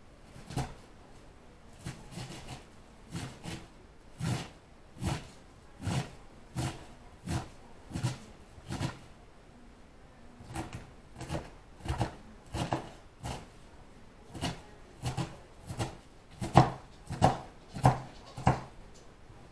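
A steady series of sharp knocks, about three every two seconds, with a short pause near the middle and the loudest knocks near the end.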